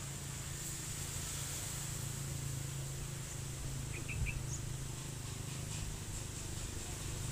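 Outdoor ambience: a steady low hum and a faint high insect-like buzz, with a few short bird chirps about four seconds in.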